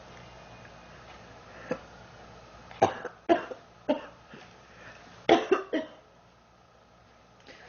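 A sick girl coughing in two short fits of about three coughs each, the first near three seconds in and the second a little after five seconds in.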